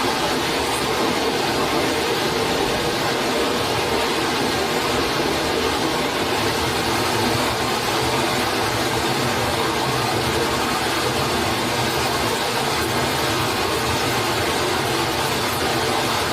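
Steady rush of a forest stream's running water, an even noise with no break or change.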